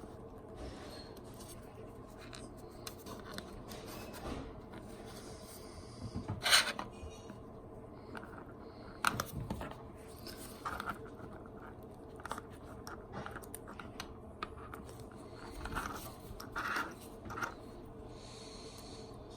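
Small 3D-printed PLA plastic parts of a miniature crawler being handled and taken apart: scattered light clicks, scratches and scrapes, the sharpest about six and a half and nine seconds in.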